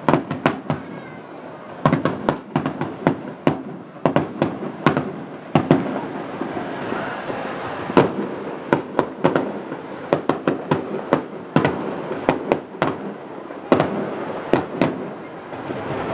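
Fireworks display finale: shells bursting in a rapid, irregular barrage of sharp bangs, many a second at times, over a continuous crackling wash.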